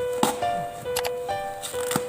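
Background music: a melody of held notes with sharp percussive hits.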